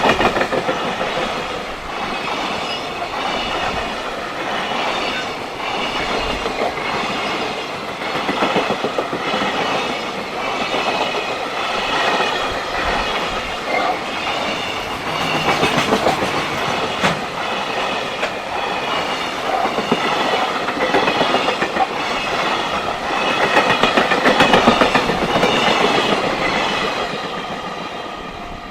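Freight train wagons rolling past, their wheels clattering rhythmically over the rail joints. The clatter swells a little about 24 s in, then begins to fade near the end as the train passes.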